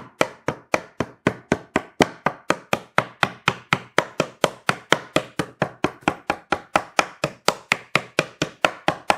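Rapid, even tapping on cedar hive-box boards, about four to five taps a second, knocking the dovetail joints together.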